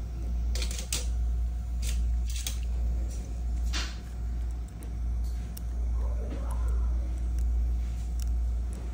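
Sharp clicks of steel orthodontic instruments against braces brackets and wire, several in the first four seconds and fainter ones after, over a steady low hum.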